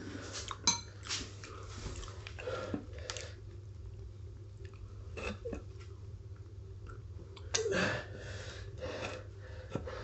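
Scattered small knocks, creaks and scuffs of a solid rubber tyre being forced onto a Xiaomi M365 scooter's metal wheel rim by hand and foot, with a louder scuffing burst about three-quarters of the way through.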